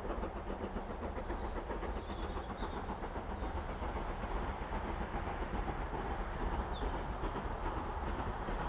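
Double-headed steam train of Q Class No. 30541 and BR Standard Class 5 No. 73156 approaching under steam, a steady rapid chuffing from the exhausts with a low rumble, slowly growing louder.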